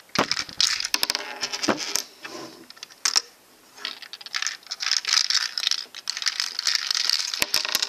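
A LEGO candy machine shaken by hand, with the coins inside rattling and clicking against the plastic bricks. It goes in two spells of clatter, with a short pause about three seconds in. Nothing shakes out of the machine.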